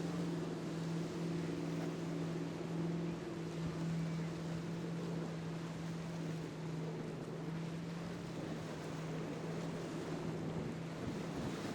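Motorboat engine running with a steady drone, its upper overtones fading after a few seconds as it passes, over a wash of surf and wind noise.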